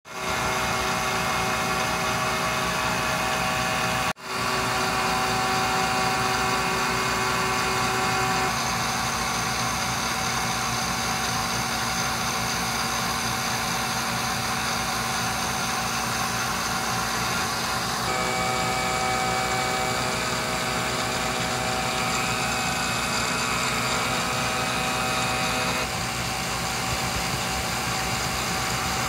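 CNC Bridgeport milling machine's spindle and end mill cutting an aluminium disc: a steady machine hum with several held tones. It drops out briefly about 4 s in, and the pitch of the tones shifts about 8, 18 and 26 s in as the cut changes.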